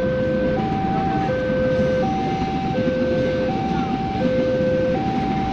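Railway level-crossing warning alarm sounding an alternating two-note tone, a low and a high note each lasting about three-quarters of a second in turn, over the steady rumble of a passing train.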